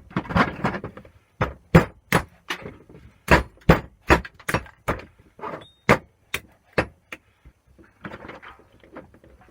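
Hammer striking metal boiler parts being broken down for scrap: a steady run of sharp blows, a little over two a second, that stops about seven seconds in and gives way to lighter metal clatter.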